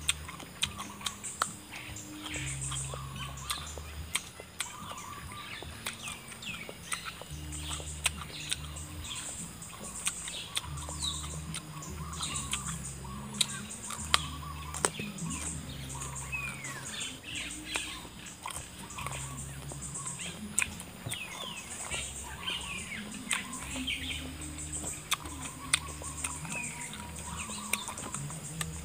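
Close-up chewing of crisp raw fruit dipped in sauce, with many sharp mouth clicks and crunches throughout, over background music with a low bass line and birds chirping.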